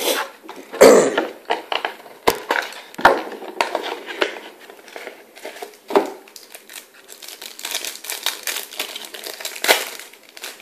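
Plastic trading-card pack wrapper being torn open and crinkled by hand, a long run of crackly rustling, with a few sharp knocks about one, two and three seconds in.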